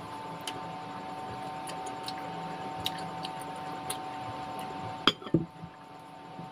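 Quiet mouth sounds of eating green mango, with scattered faint ticks over a steady low hum; about five seconds in, a sharp clink of a ceramic bowl, followed by a couple of short knocks.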